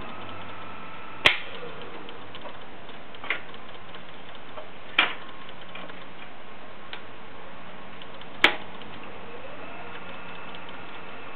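Wood lathe turning a large log blank, slowing to a stop and then being started up again, its motor whine gliding in pitch as it does. Sharp clicks cut through the steady hum, the loudest about a second in, five seconds in and eight and a half seconds in.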